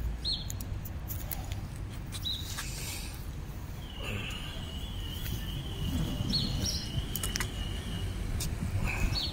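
Outdoor ambience: a steady low rumble with several short high chirps scattered through, and a steady high whistle lasting about four seconds from the middle.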